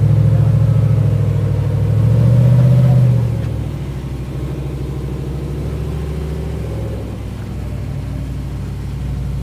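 Lifted Jeep Wrangler's engine working under load as it crawls up a near-vertical rock chute. It rises in revs and loudness about two seconds in, then drops back to a quieter, steady run about a second later.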